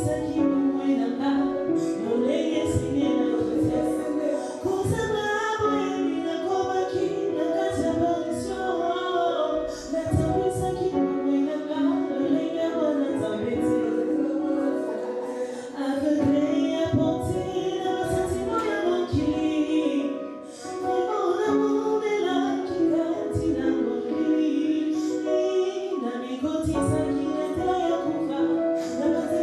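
A woman singing a gospel song over instrumental backing with a steady beat.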